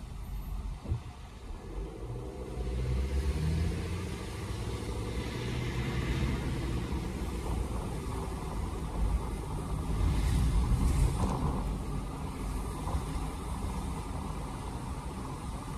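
Car driving heard from inside the cabin: a low engine rumble and tyre noise on a wet, slushy road. The engine picks up speed about two seconds in, and the road noise swells louder about ten seconds in.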